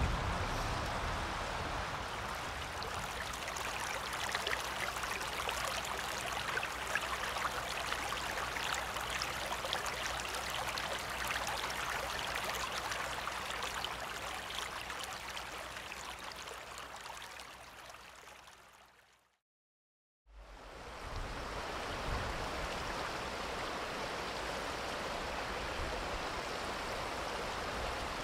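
A mountain stream running with a steady rush of water. It fades out about two-thirds of the way through, there is a second of silence, and then a similar steady rush of water starts up again.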